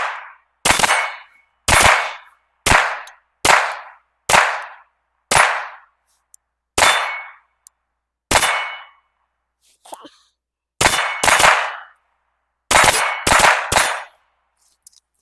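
CZ P-10 9mm pistol firing 115-grain rounds, about fourteen shots. They come at roughly one a second at first, then after longer pauses in quicker doubles and triples near the end.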